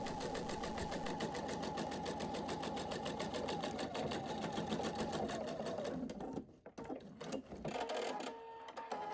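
Sewing machine stitching a seam at speed, with a fast, even stitch rhythm, stopping about six seconds in; a few light clicks and handling sounds follow.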